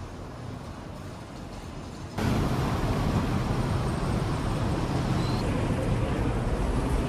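City street traffic noise, a steady hum of cars, which steps up suddenly about two seconds in to a louder, fuller rumble.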